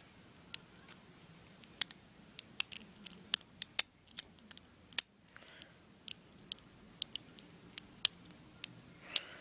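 Master combination padlock being worked by hand, its dial giving a series of short sharp clicks at uneven intervals, roughly one to two a second.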